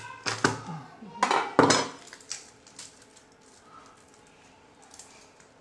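Kitchen knife knocking on a cutting board as garlic cloves are crushed under the flat of the blade: several sharp knocks and a clatter in the first two seconds, then only a few faint clicks.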